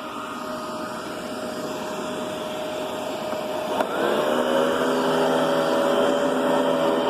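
Riccar Brilliance upright vacuum cleaner running, its motor hum growing louder; about four seconds in there is a click and the whine changes to a fuller, louder set of tones.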